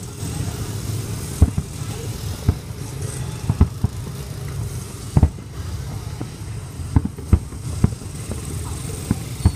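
Fireworks shells bursting in irregular succession, about eight dull booms, over a steady background hubbub of voices.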